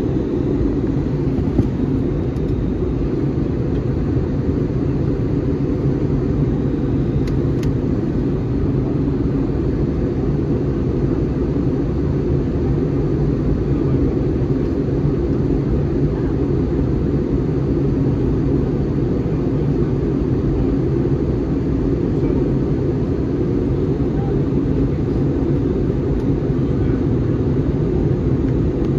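Steady low rumble of cabin noise inside an Airbus A321 airliner in flight, the engines and airflow heard from a window seat.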